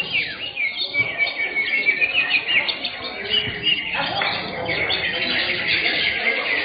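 Several caged green leafbirds (cucak hijau) singing at once in a dense, unbroken chorus of quick chirps and rapid trills.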